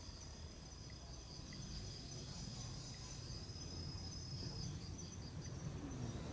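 An insect's steady, high-pitched trill, which stops about two-thirds of the way through, over a low rumble.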